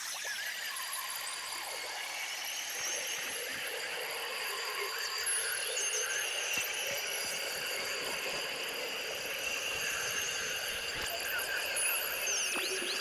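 Dense jungle soundscape of many bird and insect calls: quick runs of repeated high chirps over several steady high insect trills.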